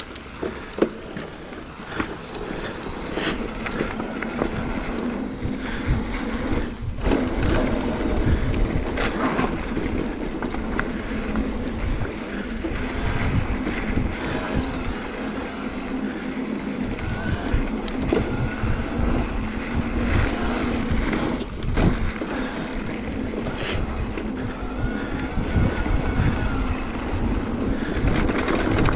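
Electric mountain bike ridden fast over a dirt trail: wind rumbling on the handlebar-mounted camera, tyres on loose dirt and the bike rattling, with sharp knocks over bumps, loudest about a second in and again near 22 seconds. Under it a steady hum from the e-bike's electric motor.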